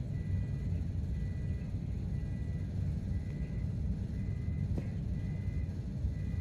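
A faint high-pitched car alarm beep repeating about twice a second, under a louder steady low rumble of outdoor noise.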